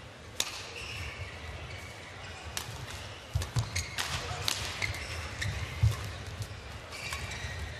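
Badminton rally: sharp cracks of rackets striking the shuttlecock at irregular intervals, with thuds of the players' footwork on the court.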